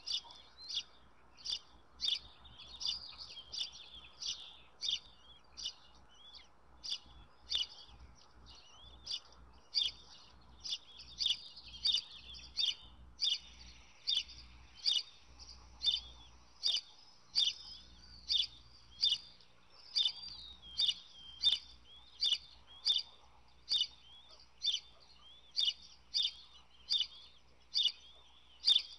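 Small birds chirping and twittering in quick, high calls, over a regular sharp ticking about twice a second.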